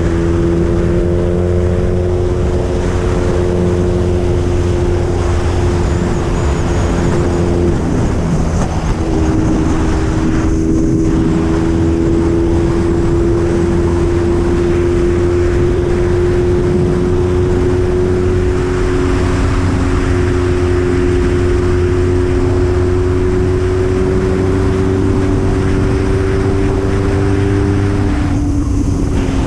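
BMW R nineT's 1170 cc boxer twin through an Akrapovič full exhaust, heard from the saddle while cruising at highway speed, with the rush of wind on the microphone. The engine note breaks briefly about eight seconds in, then its pitch climbs slowly as the bike gathers speed.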